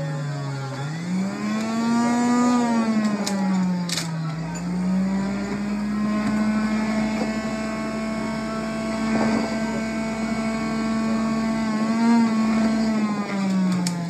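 Electric juicer motor running under load as basil is pressed down its feed chute. Its whine rises, dips and then holds steady, with a couple of clicks a few seconds in, and it sinks in pitch near the end.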